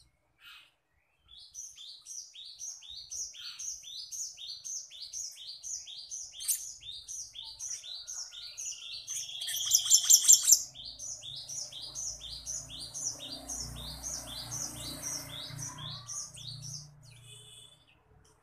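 Black-naped monarch (kehicap ranting) singing a long series of repeated high, downward-sliding whistled notes, about two to three a second. About ten seconds in, a louder harsh rattling burst briefly cuts across the song.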